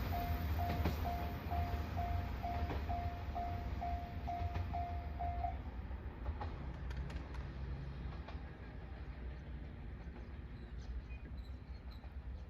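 Level-crossing warning bell ringing about twice a second over the low rumble of a passing train. The bell stops about five and a half seconds in, and the train's rumble fades away.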